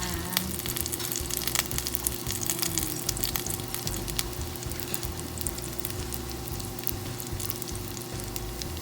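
Okoy (small white fish fritters) frying in hot oil in a pan: a steady sizzle with constant crackling and frequent small pops.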